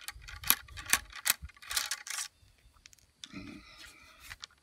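A wooden ramrod working down the barrel of a flintlock long rifle, ramming a .50 caliber ball home onto the powder charge: a run of sharp clicks and knocks with scraping in the first two seconds, then a pause and a few more clicks near the end.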